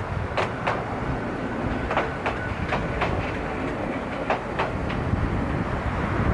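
Electric train's wheels clicking over rail joints, the clicks coming in pairs about a quarter second apart as each bogie's axles pass, over a steady low rumble of running and wind noise on the microphone.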